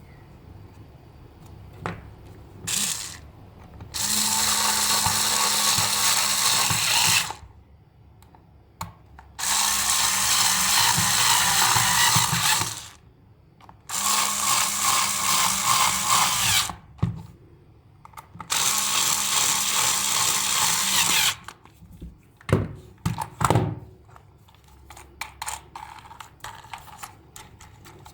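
A small power tool runs in four bursts of about three seconds each, stopping for a second or two between them. A short blip comes before the first burst, and a few sharp clicks and knocks follow near the end.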